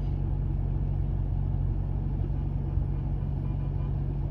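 Steady low rumble of car engine and road noise heard from inside the cabin while driving.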